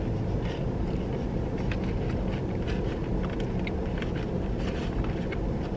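Steady low hum of a car idling, heard from inside the cabin, with faint short clicks of chewing and food handling now and then.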